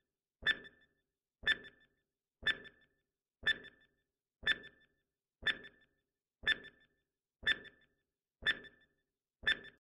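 Countdown timer sound effect: a short tick with a brief high tone, repeating once a second, ten times.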